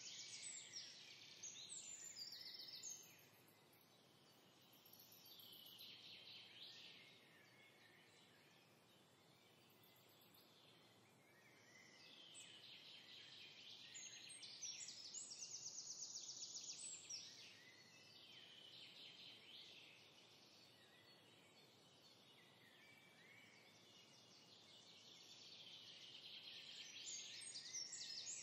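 Faint songbirds singing: a string of chirping, warbling phrases, with a fast trill coming back now and then, over a soft hiss.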